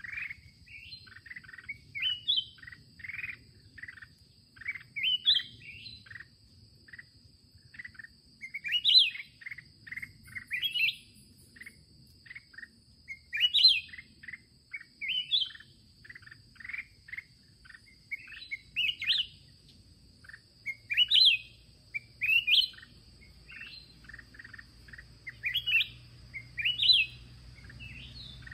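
Black-crested bulbuls singing: repeated short phrases of quick chirps, each ending in rising notes, about every two seconds, from a caged decoy bird and a wild bird drawn in to challenge it.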